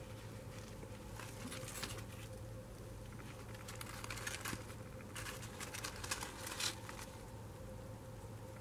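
Damp corrugated cardboard bedding and crumbly worm castings rustling and crinkling as a hand moves them in a red worm bin. The sound comes in several short bursts through the middle, the loudest about two-thirds of the way through, over a steady low hum.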